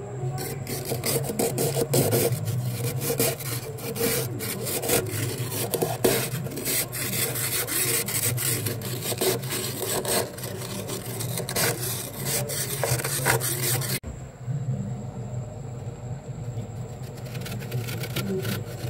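Fingers scraping thick, soft frost off the inside walls of a freezer, a dense crackling, crunching scrape of packed ice crystals. About two-thirds of the way through it turns quieter and softer.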